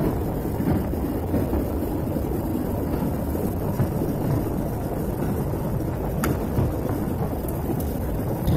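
Steady low rumble of airliner cabin noise during the descent to landing: engine and airflow noise heard from inside the passenger cabin.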